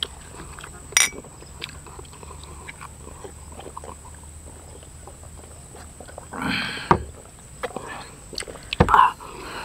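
A glass clinks sharply about a second in, just after a toast. A few seconds later comes a short breathy exhale from men who have just swallowed their drinks, and near the end another, with a low thump.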